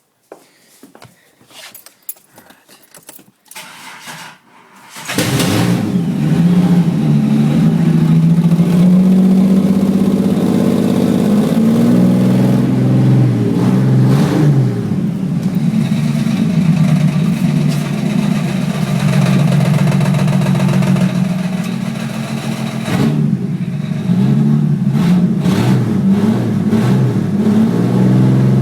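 Holden VR Commodore engine starting about five seconds in, after a few faint clicks, then running loud and unmuffled with its exhaust disconnected. It carries a rattle that the owner puts down to an old harmonic balancer.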